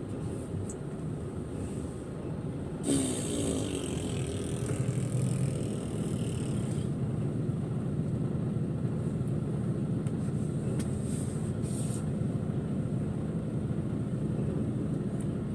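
Articulated lorry's diesel engine running steadily, heard from inside the cab. A hiss comes in about three seconds in and dies away some four seconds later.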